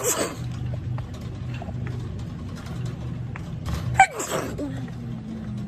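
A woman sneezes sharply about four seconds in, the sneeze ending in a voiced sound that falls in pitch and trails off as a held tone; the tail of another sneeze fades out at the very start. A steady low hum runs underneath.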